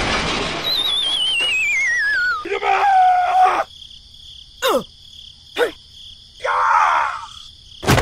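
Cartoon sound effects: a long falling, wobbling whistle, then a short squeaky sound, two quick falling zips, a brief scratchy burst and a sharp click right at the end.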